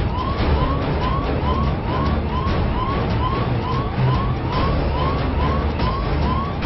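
Siren sound effect dubbed in as an alarm gag: a fast rising whoop, like a police yelp siren, repeated about twice a second.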